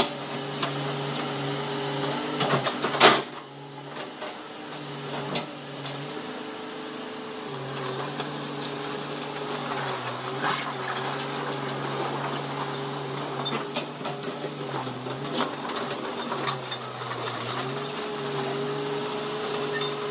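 Komatsu PC200-8MO excavator's diesel engine running under hydraulic load, a steady drone whose pitch steps up and down every few seconds as the machine works. A single sharp knock about three seconds in.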